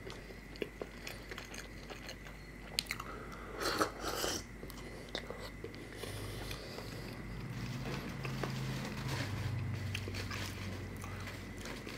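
Close-miked eating sounds of a person biting and chewing food, with small mouth clicks and a louder crunchy spell about four seconds in.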